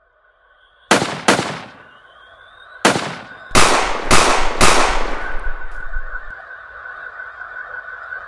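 Six sharp gunshots, two close together and then four more in quick succession, each with a short echo. A steady high-pitched ringing tone follows.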